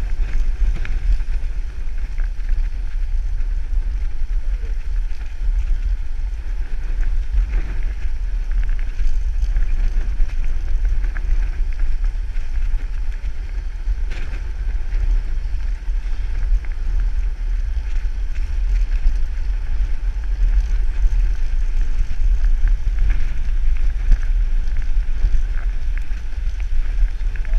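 Heavy wind buffeting on the microphone of a camera on a fast-moving road bike: a loud, steady low rumble with a fainter hiss above it.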